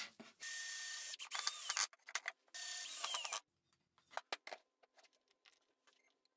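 A power tool running in two short bursts, about a second and a half and then under a second, each starting and stopping sharply. A few sharp clicks and knocks follow, then faint ticking and scratching.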